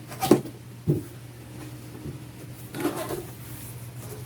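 Handling and unpacking knocks as a thin plastic carpet-washer attachment is taken out of its packaging: a sharp click-and-knock about a third of a second in, another just under a second in, and a short cluster of knocks around three seconds in.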